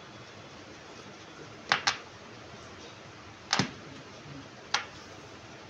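Cups knocking down onto a glass-topped table: a quick double click about a second and a half in, a heavier knock in the middle, and a single sharp click near the end.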